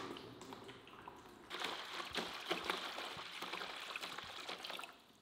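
Water poured from a large plastic jug into a plastic basin, splashing; the stream gets louder after about a second and a half and stops abruptly near the end.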